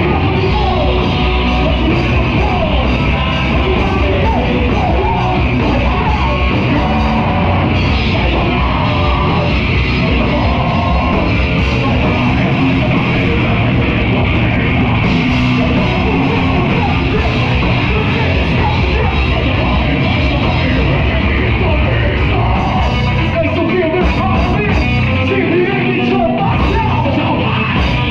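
Live heavy rock band playing loud and without a break: electric guitars and drum kit with a vocalist singing over them.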